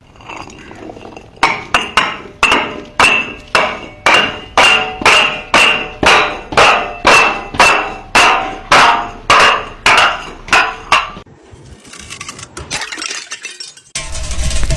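Glass bottle tumbling down stairs, striking step after step about twice a second, each knock with a ringing glassy clink. The knocks stop, a rough rattling noise follows, and a louder harsh crash begins near the end.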